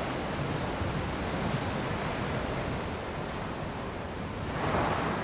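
Sea waves washing, a steady rushing noise that swells a little near the end.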